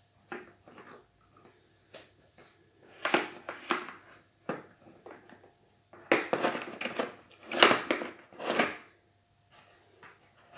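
Irregular rustling and clattering of objects being handled, in a series of short bursts, the loudest near the middle and about two thirds of the way in.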